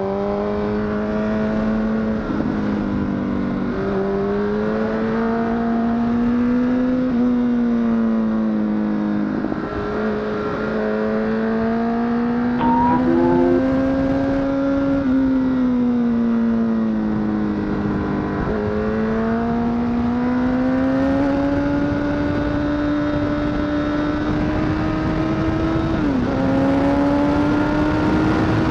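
Honda CBR1000RR (SC57) inline-four engine running hard on the road, its pitch climbing slowly and dropping sharply several times as the throttle and gears change, over steady wind noise.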